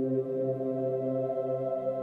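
Background music: calm ambient synthesizer pads with sustained, organ-like chords.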